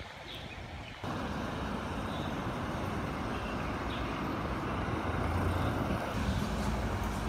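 Road traffic, starting abruptly about a second in: cars driving past on an asphalt street with engine and tyre noise, loudest as a car passes close near the end.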